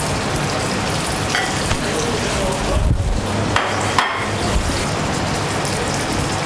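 Floured red snapper pieces frying in hot oil in a frying pan, a steady sizzling hiss. A few sharp knocks land around the middle.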